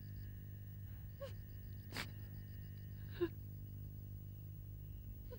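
Quiet, restrained crying: a few short catching sobs and a sniff, spaced a second or more apart, faint over a steady low hum.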